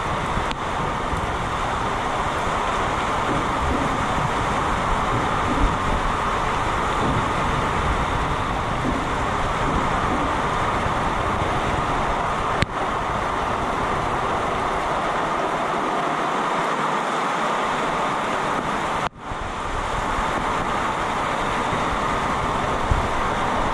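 Heavy, wind-driven storm rain pouring down, with strong gusts buffeting the microphone in a loud, steady rush. The sound breaks off for an instant about three-quarters of the way through.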